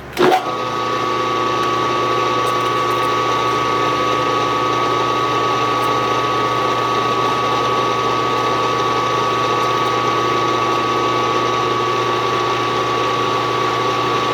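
Milling machine spindle switched on with a sharp start just after the beginning, then running steadily at speed with a constant whine.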